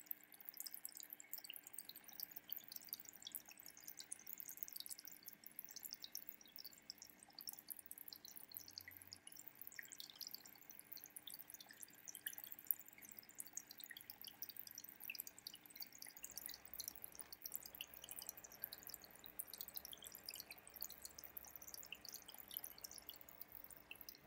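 Faint aquarium water trickling and bubbling: a fast, dense patter of tiny drips, with a faint steady hum underneath.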